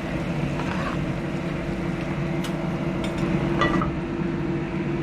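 A steady low mechanical hum in the kitchen, with a few light clicks of a utensil on the pan about halfway through.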